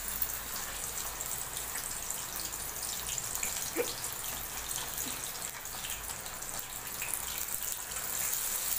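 Masala-coated fish pieces sizzling in hot oil in a frying pan: a steady hiss dotted with small crackles and spits, a little louder near the end as another piece is laid in.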